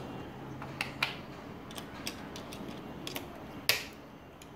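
Plastic snap-circuit pieces being handled and pressed together on their metal press-stud connectors: a series of irregular sharp clicks, the loudest about three and a half seconds in.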